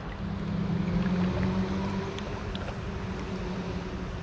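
A steady low hum, swelling about a second in and then slowly fading, over the steady rush of the high creek.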